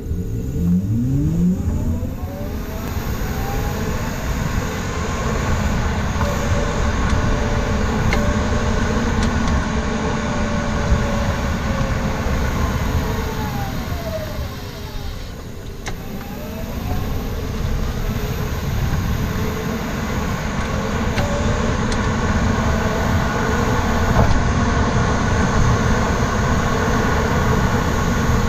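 A 2018 Mitsubishi Outlander being driven, heard from under the car by the rear wheel as a steady rumble of road and tyre noise. A whine climbs in pitch as the car gathers speed, falls as it slows about halfway through, then climbs again.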